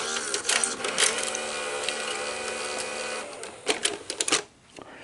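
Betamax video cassette recorder mechanism running with a steady whirring hum that stops about three seconds in, followed by a quick run of mechanical clicks.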